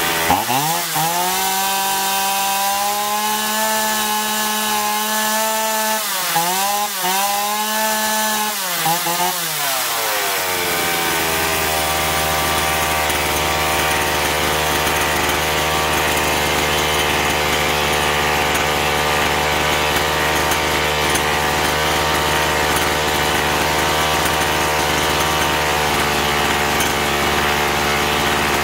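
Chainsaw's two-stroke engine, carburettor cover off, held at high revs for about ten seconds with a brief dip in revs about six seconds in, then released and falling back to a steady idle. It is being test-run after a carburettor clean, with the low and high mixture screws set one and a half turns out, to check its bogging at throttle.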